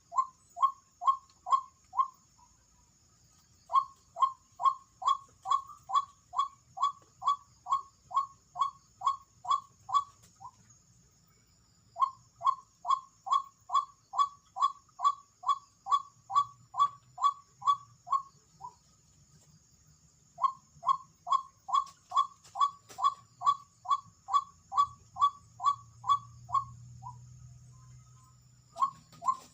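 White-breasted waterhen (ruak-ruak) calling: short falling 'kwak' notes at about two a second, in four runs of several seconds each with brief pauses between. A thin, steady high-pitched whine runs underneath.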